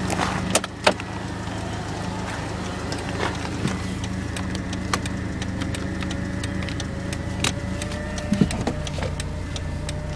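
1990 BMW 318i's four-cylinder engine idling steadily. Two sharp knocks come just under a second in, and small clicks follow as the door and interior fittings are handled.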